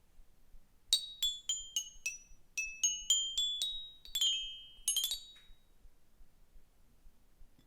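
A short melody of high, bell-like struck notes, about a dozen in four seconds, ending in a quick flourish, like a glockenspiel or chime jingle.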